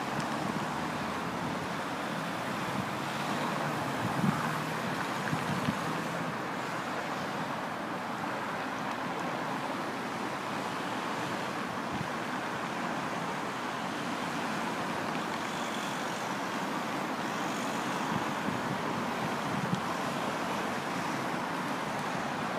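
Steady road traffic noise, with wind on the microphone and a few small knocks about four and six seconds in.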